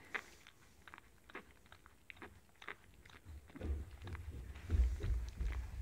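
Mini dachshund licking, a run of short wet smacking clicks from her mouth. About halfway through, low rumbling and bumps come in and become the loudest sound.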